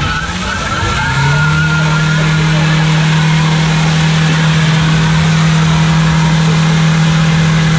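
Front-wheel-drive hatchback doing a stationary burnout. The engine revs climb over the first second, then hold at a steady high pitch while the front tyres spin against the tarmac.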